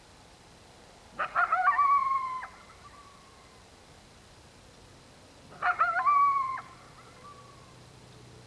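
Coyotes calling in two short bouts about four seconds apart, each a quick run of wavering yips that settles into a held howl lasting about a second.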